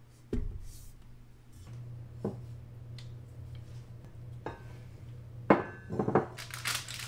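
A spatula and wire whisk attachment knocking and clinking against a stainless-steel stand-mixer bowl as freshly churned butter is scraped off. There are several separate strikes, the loudest about five and a half seconds in, over a low steady hum.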